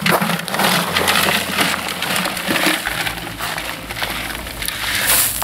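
Live crawfish clattering against each other and against plastic as a bucket is scooped through a cooler full of them: a dense, steady run of small clicks and scrapes.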